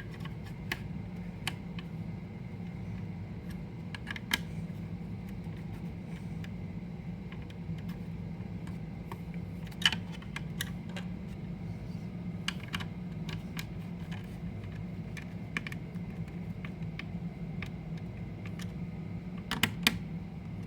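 Light, scattered clicks and taps, sometimes in quick pairs or small clusters with pauses between, like keys being pressed, over a steady low hum.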